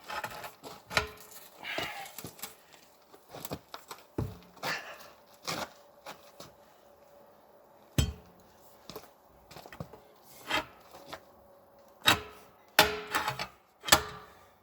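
Tire irons clanking and scraping against a wheel rim as a tire is levered onto it by hand: irregular sharp metal knocks and clinks with scraping between them, the hardest knocks about eight seconds in and in a cluster near the end.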